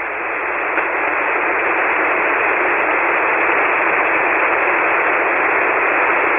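Shortwave ham transceiver receiving an empty 40-metre single-sideband channel: a steady hiss of band noise, held to the narrow voice band of the receive filter. No station answers because the other operator has drifted off frequency with his VFO dial.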